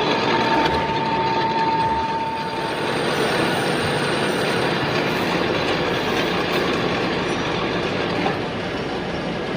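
Metal lathe running and cutting metal: a steady mechanical noise, with a high steady tone during the first three seconds.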